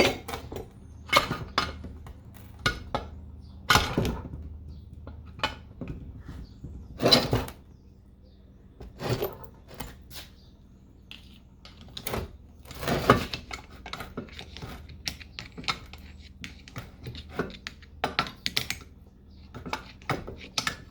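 Screwdriver prying a part out of a cast aluminum gearbox housing: irregular metal clanks, knocks and scrapes, the loudest about 4, 7 and 13 seconds in.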